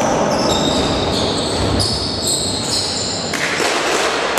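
Basketball play in a large gym hall: sneakers squeaking in many short, high chirps on the wooden floor, with a basketball being dribbled.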